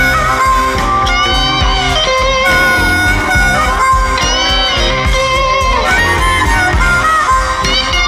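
Live electric blues band: an electric guitar plays lead with bent notes over bass and drums, with a harmonica.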